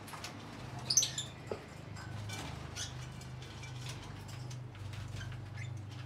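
Lovebirds in a wire cage: a short burst of high chirps about a second in, then light scratching and rustling of birds moving about, over a steady low hum.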